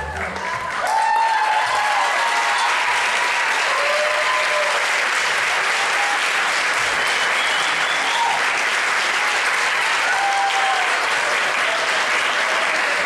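Theatre audience applauding with scattered cheers and shouts. The backing music cuts off at the start, and the applause swells about a second in, then holds steady.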